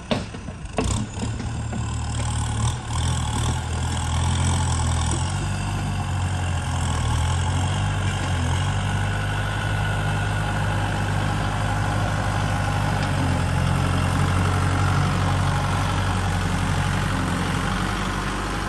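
Kubota tractor's diesel engine running steadily under load as its front blade pushes soil, growing louder over the first few seconds as it comes closer. A few sharp knocks sound in the first second or so.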